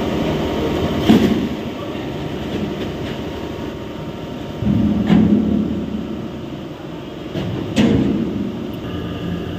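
Ice plant machinery running with a steady hum. Heavy knocks come about a second in and again near eight seconds, with a louder stretch of about a second around five seconds, typical of ice cans and blocks being handled.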